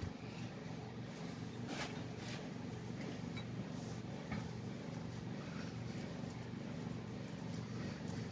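A steady low hum runs throughout, with a few faint clicks and taps as fingers work at a rusted brake caliper.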